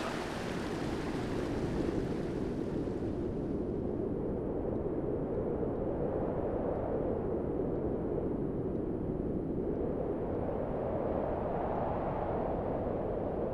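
Steady low rushing noise with no tune or beat; its higher hiss fades away over the first few seconds.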